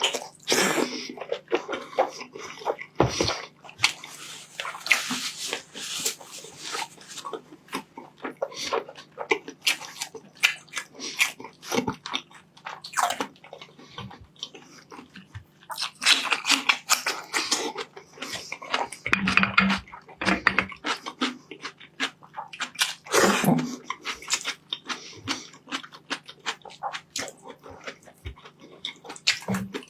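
Close-up eating sounds: rice and meat being chewed, with rapid, irregular wet smacking and clicking of the mouth.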